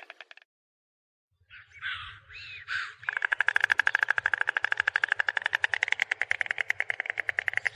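Stork clattering its bill: a rapid, even rattle of fast clicks. It breaks off for about a second, a few short rasping sounds come around two seconds in, and the rattle starts again about three seconds in.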